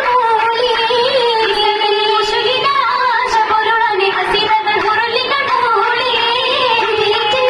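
Oppana song: young girls' voices singing a Mappila melody together, continuously, with a few short sharp hits that fit the dancers' hand claps.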